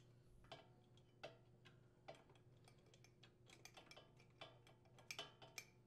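Faint, scattered metal ticks and clicks as the rocker cover's top screw is threaded in with a hand tool and the steel cover shifts against the cylinder head. A few louder clicks come near the end.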